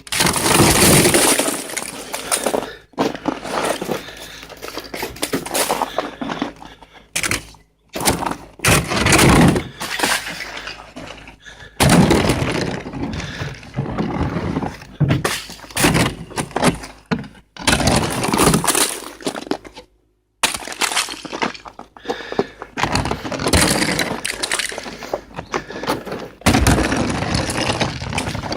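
Thick sheets of ice being scraped, chipped and broken off a frozen car: dense crunching and cracking with brittle, glassy breaking. It comes in loud bursts that stop abruptly several times.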